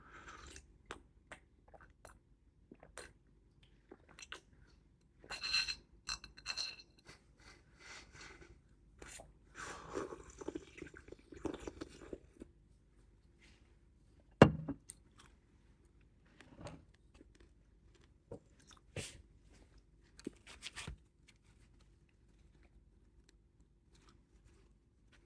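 A person eating at a table: chewing, and slurping soup from a bowl held to the mouth about ten seconds in. Light clicks and a brief ringing clink of chopsticks and dishes come and go, and one sharp knock about halfway through is the loudest sound.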